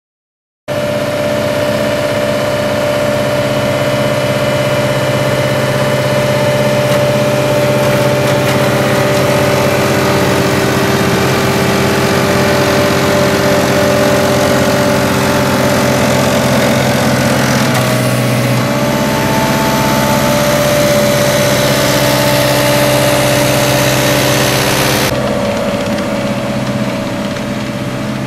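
Caterpillar 277C compact track loader's diesel engine running steadily under load while it pushes a front-mounted grader blade through sand. It cuts in abruptly just under a second in, its tone shifts about two-thirds of the way through, and the high hiss drops away near the end.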